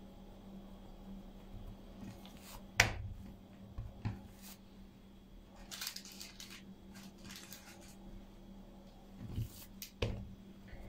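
Soft handling sounds of closed pide dough being pressed and shaped by hand on a countertop. There are a few sharp clicks and taps, the loudest about three seconds in, and a brief rustle around six seconds, over a faint steady hum.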